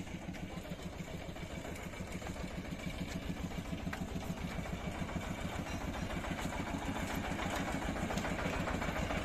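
A small engine running steadily with a fast, even beat, growing louder toward the end.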